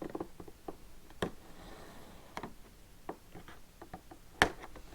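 Scattered light clicks and taps from hands handling a cardboard jigsaw puzzle box, with one sharper tap near the end.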